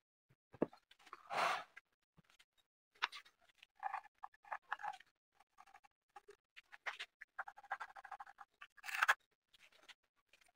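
Faint scattered knocks and scrapes as an electric motor is shifted on a board, with short scratching strokes of a pencil marking through the holes in its mounting foot.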